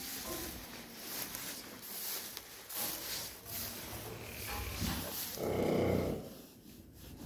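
A horse makes a short, low, pulsing vocal sound about five and a half seconds in, the loudest thing here. Rustling and handling noise runs around it.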